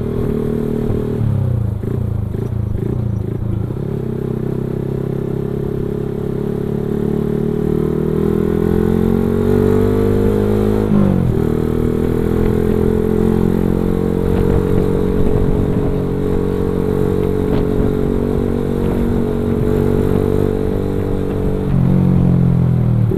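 Motorcycle engine running while riding, its pitch climbing as it accelerates, dipping sharply about eleven seconds in and climbing again, then holding steady before falling off near the end.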